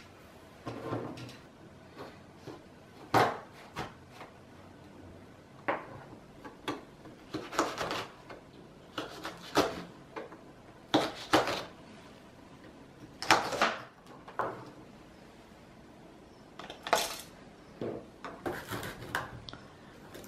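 Kitchen knife cutting small red chillies on a plastic cutting board: irregular sharp knocks of the blade hitting the board, usually one every second or two.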